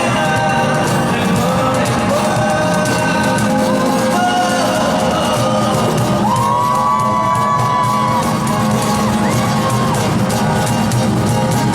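Rock band playing live through a PA, a full amplified band with held melodic lines over steady drums, and the audience whooping and cheering along.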